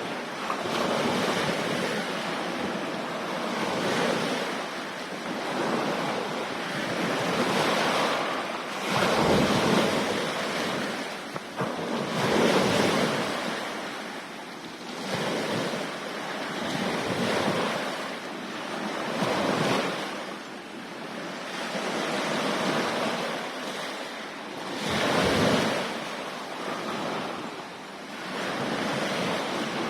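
Sea waves washing in and drawing back, swelling and fading every few seconds, with wind gusting on the microphone now and then.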